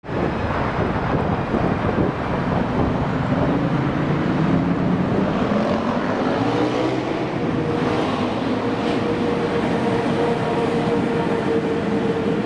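ChS7 two-section DC electric locomotive hauling a passenger train approaching and passing close: a steady rumble of wheels on rails, with a whine that rises in pitch for a few seconds and then holds steady.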